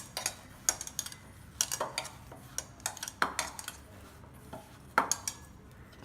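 A metal spoon clinking and tapping irregularly against a bowl while dry spice masala (chilli powder, turmeric and salt) is spooned in and mixed. The sharpest clink comes about five seconds in.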